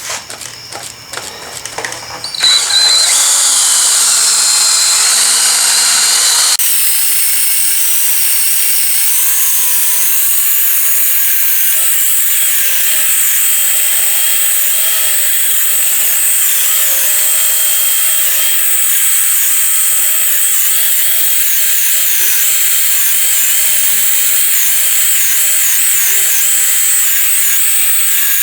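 A power drill spinning a foam polishing ball against a plastic headlight lens, buffing in the restoration polish. It starts after a couple of seconds of light tapping and runs steadily, its whine wavering in pitch as it is pressed on the lens.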